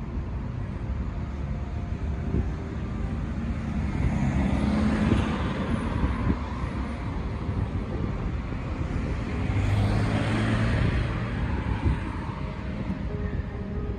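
City street traffic: two cars pass close by, one about four seconds in and another about ten seconds in, over a steady rumble of traffic.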